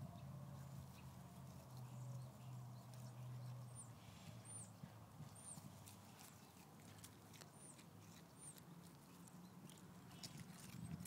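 Faint clicking and crunching of a dog chewing a cracked egg and its shell. A low steady hum fades out about four seconds in, and a few short high chirps come through the middle.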